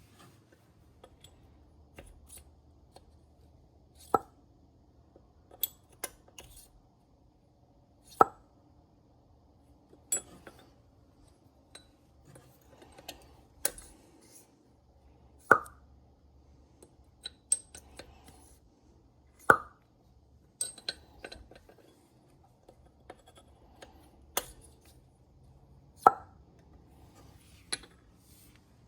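Engine poppet valves being snapped in their guides in a cylinder head in a valve guide pop test, giving a sharp pop with a short ringing tone every few seconds, five of them loudest, mixed with lighter metal clicks and clinks. A pop is the sign that the guide is not badly worn; a badly worn guide makes no pop.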